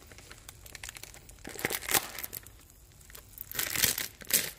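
Plastic bacon packet crinkling as hands struggle to tear it open, in two louder bursts: about one and a half seconds in and again near the end.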